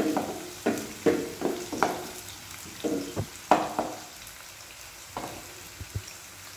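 Sliced onions sizzling in hot oil in a nonstick kadai while a wooden spatula stirs them, knocking and scraping against the pan several times over the first few seconds. After that the stirring stops and the oil sizzles more quietly and steadily, with a couple of light taps, as the onions begin to sauté.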